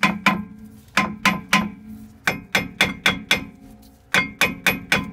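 Steel lump hammer striking the hub of a cast-iron brake disc, about fifteen ringing metallic clangs in quick groups of three to five with short pauses between. The blows are loosening rust that has seized the disc onto the hub.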